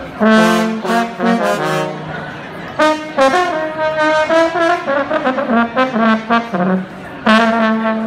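Balkan brass band playing live, trombones to the fore: a few short punchy stabs, then a quick running melody, and a long held note near the end.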